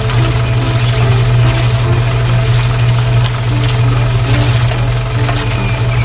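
Toy cement mixer truck running with a steady, unbroken low hum like an idling engine, over a fine hiss as sand streams out of its chute.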